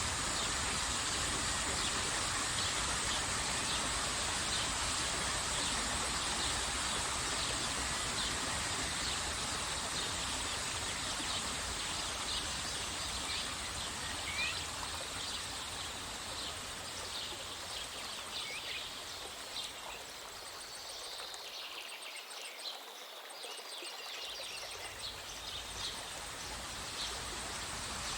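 Steady rushing of a waterfall, dipping a little for a few seconds about three-quarters through, with many short bird chirps over it.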